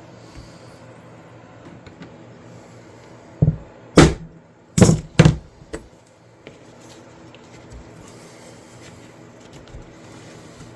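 About four sharp knocks in quick succession near the middle, over a faint steady hum.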